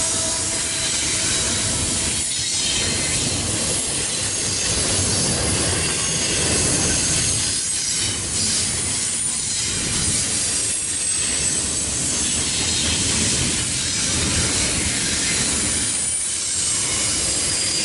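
Double-stack container freight train passing close by: a steady rumble and clatter of steel wheels on the rails, with thin high-pitched wheel squeals over it.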